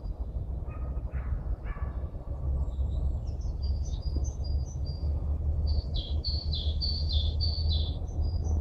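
Several wild birds singing and calling in spring: high, repeated chirping notes throughout, a few harsher, lower calls about one to two seconds in, and a fast run of loud song notes near the end. A steady low rumble sits beneath the birdsong.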